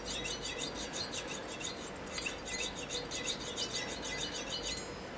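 Fine-bladed hand saw cutting through a die-cast toy truck body in fast back-and-forth strokes, about six a second. There is a short pause about two seconds in, and the strokes stop near the end.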